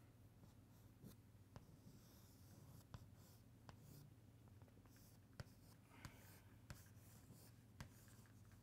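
Chalk on a chalkboard: faint scratching strokes and scattered sharp little taps as lines, a circle and a box are drawn, over a low steady hum.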